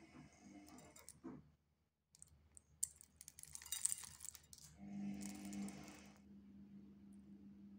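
Coarse salt crystals sprinkled over salad greens and pumpkin seeds: a scatter of small hard clicks building into a brief patter about two to four seconds in. A low steady hum follows.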